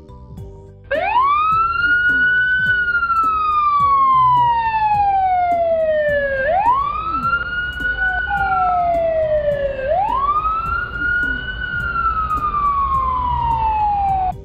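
Fire engine siren wailing. It starts about a second in and runs three cycles, each rising quickly and then falling slowly.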